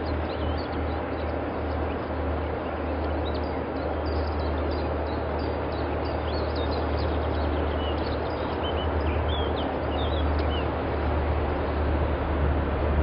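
Distant diesel locomotive working a train, a low steady engine rumble that slowly grows louder as it approaches. Birds chirp over it for much of the time.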